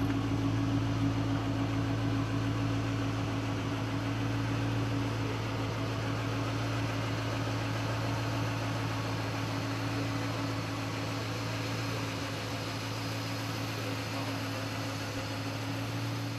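Steady, unchanging low mechanical hum: two constant low tones over an even hiss.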